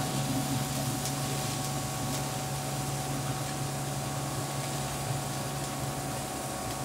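An electric smokeless indoor grill running: a steady hum with thin whining tones from its fan, over an even hiss of seafood and vegetables sizzling on the grill plate.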